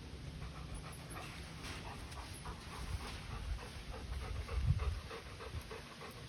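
A Labrador retriever panting quickly and steadily, about three to four breaths a second, with a louder low thump about two-thirds of the way through.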